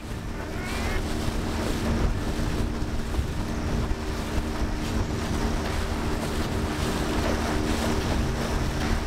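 Motorboat under way: its engine runs at a steady hum while water rushes along the hull and wind buffets the microphone. A short gull call comes about a second in.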